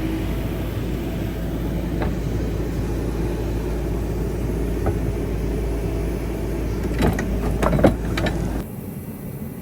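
An engine running steadily, with a few knocks about seven to eight seconds in. The rumble cuts off sharply shortly before the end.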